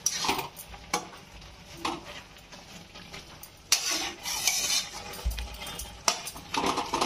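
A metal spatula stirring and scraping chopped bathua greens around a steaming metal kadhai, with a light sizzle. The greens are already softened. The strokes come in separate runs, the longest about four seconds in.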